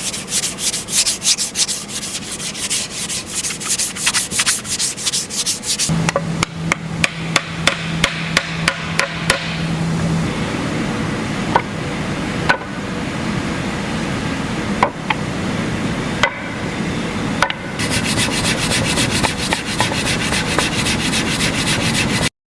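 Woodworking sounds on solid wood: quick, rhythmic rubbing and sanding strokes, then a stretch with a low steady hum and sharp clicks, then rapid rubbing strokes again. The sound cuts off suddenly near the end.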